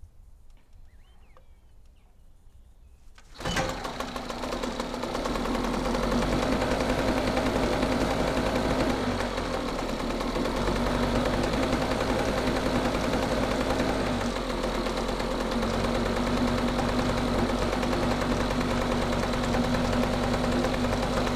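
Small Hangkai 4 hp outboard motor, freshly overhauled, catching about three seconds in and then running steadily.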